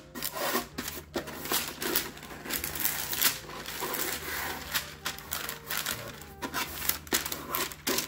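Parchment paper crinkling and rustling in quick, irregular crackles as fingers press and crease it around the rim of a container underneath.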